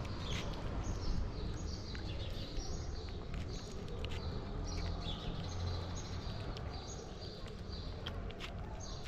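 Tuxedo cat eating food from a plastic tray at close range: quick wet chewing and smacking with many small clicks. Short high chirps repeat behind it.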